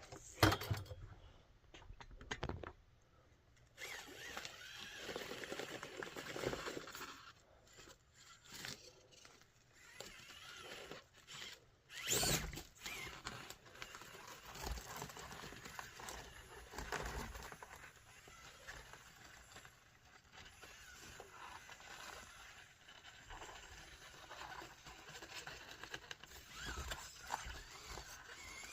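Small RC rock crawler on a Traxxas TRX-4M chassis climbing an obstacle course, its tyres and chassis scraping and tapping over the surfaces in an uneven way, with one louder knock about twelve seconds in.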